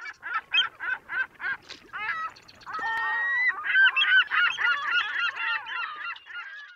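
Geese honking: a string of single honks about three a second, then from about three and a half seconds in many overlapping honks as a flock calls together.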